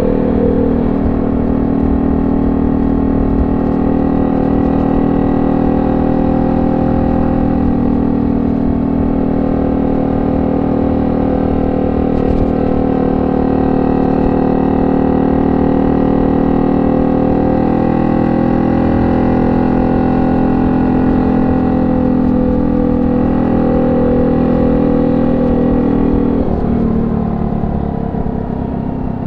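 Honda C70's small four-stroke single-cylinder engine running steadily at held revs through a banana-style ('pisang') exhaust. Near the end the engine note drops and gets a little quieter as the revs fall.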